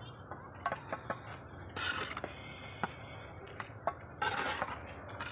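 Steel mason's trowel working on fired clay bricks and cement mortar: a scattering of short clinks and taps, with brief scrapes about two seconds in and again a little after four seconds, as mortar is spread and trimmed along the course.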